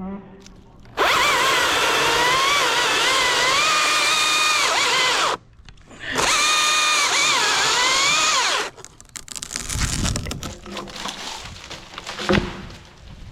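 Chainsaw cutting in two bursts, about four seconds and then about two and a half seconds, its pitch wavering and dipping under load in the wood. A few dull knocks follow, with a sharp knock near the end.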